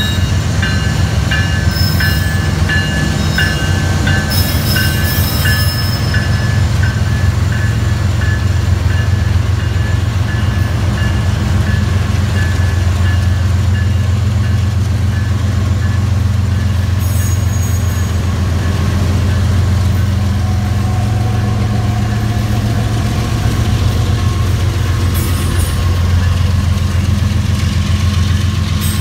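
CN diesel freight locomotives passing close by, their engines running with a steady low drone under the rumble of the train rolling over the rails.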